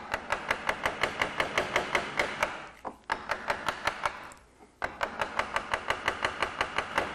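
A wooden carver's mallet tapping a wide gouge in quick, even strokes, about six a second, driving it straight down into the wood. The tapping breaks off briefly twice, about three and four and a half seconds in.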